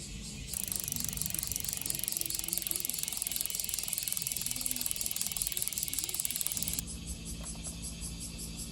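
Bicycle freehub pawls clicking in a fast, even ratchet as the wheel spins freely. The clicking grows louder about half a second in and drops back near the end, over a low hum.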